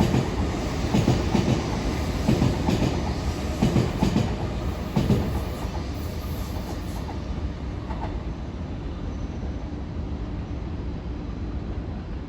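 Train wheels knocking over rail joints, the knocks coming in pairs over a steady rumble. The knocks stop after about five seconds, leaving a fainter steady rumble.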